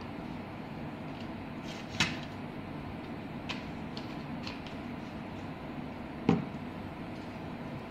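Two sharp knocks about four seconds apart, with a few lighter clicks, from a printed circuit board and tools being handled on a wooden desk, over a steady low background noise.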